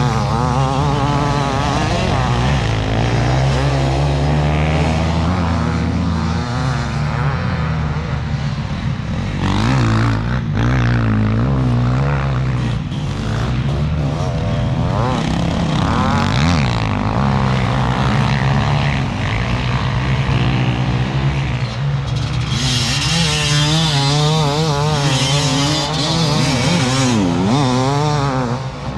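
Enduro motorcycle engine running while being ridden off-road, the revs rising and falling continuously. A rushing hiss joins in over the last several seconds.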